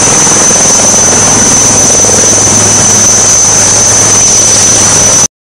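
HAL Rudra armed helicopter's twin turboshaft engines and rotor running, a loud steady noise with a high turbine whine, cutting off suddenly near the end.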